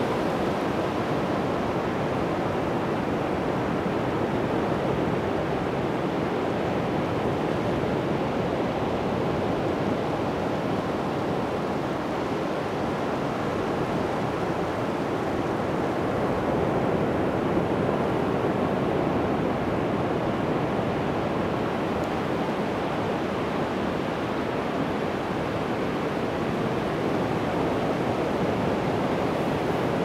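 Atlantic Ocean surf: waves breaking and washing onto the beach in a steady rushing, swelling gently as the bigger waves come in.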